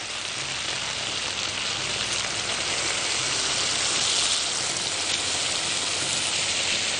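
Broth being poured into a hot frying pan of seared beef chunks and onions, hissing and sizzling steadily as it hits the hot pan. The hiss swells a little around four seconds in.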